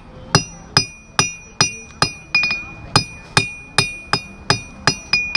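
Blacksmith's hammer striking hot iron on an anvil in a steady rhythm, about two and a half blows a second, each blow ringing. The smith is drawing the bar down to form a nail shank.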